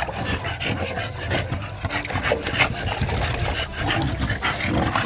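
Short-muzzled bully dogs snorting and grunting like pigs, their noisy breathing coming from their short noses, while hands scrub their wet, soapy fur.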